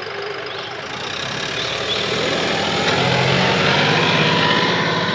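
John Deere tractor's diesel engine running and growing louder from about a second in, peaking near the end as the tractor moves off pulling a harrow.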